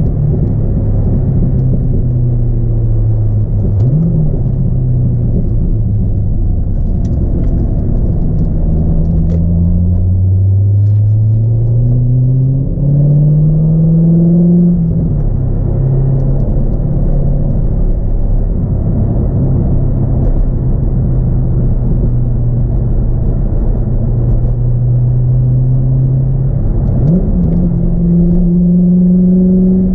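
A 2002 C5 Corvette's LS1 V8 with a cold air intake, heard from inside the cabin while driving. It runs at a steady cruising pitch with a quick rev spike about four seconds in. It climbs smoothly in pitch under acceleration through the middle, then drops back. Near the end it revs up quickly and settles at a higher pitch.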